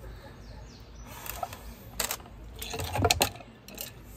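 Metal hand tools clinking and rattling as they are handled: a few scattered clicks, then the loudest cluster of clinks about three seconds in.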